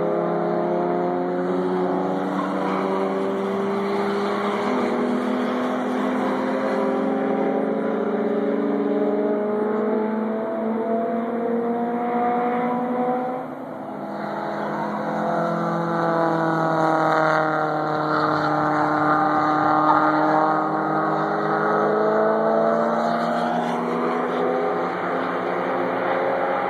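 Several cars on a road-racing circuit accelerating hard, their overlapping engine notes climbing steadily in pitch. The sound eases briefly about halfway through, then swells again to its loudest as more cars come through.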